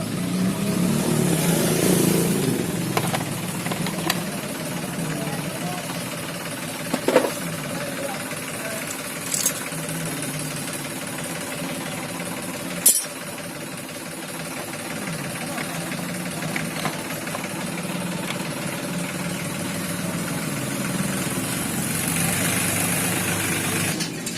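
Motorcycle engine running steadily, with a few sharp metallic clicks; the loudest click comes about halfway through.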